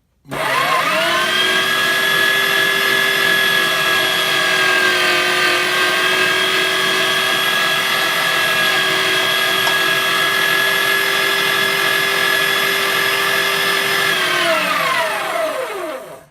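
Weston #12 electric meat grinder's 750-watt motor starting with a rising whine, running steadily under a light load, then switching off and winding down about 14 seconds in. A slice of bread is being run through the auger to push out the last of the meat.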